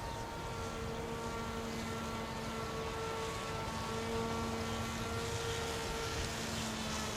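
Remote-control airplane's motor and propeller whining steadily in flight, with wind noise rumbling underneath.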